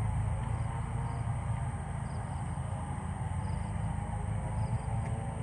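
Insects chirping faintly in short repeated trills, about one a second, over a steady low rumble.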